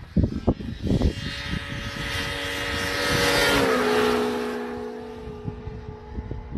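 Two-stroke snowmobile engine running on the move, with a few thumps in the first second; the engine swells to its loudest around three seconds in, then its pitch drops and holds steady lower.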